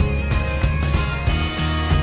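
Background music with a steady beat and a held high melody line.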